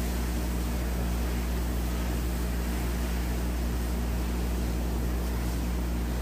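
Steady low hum with an even hiss over it, unchanging in pitch and level.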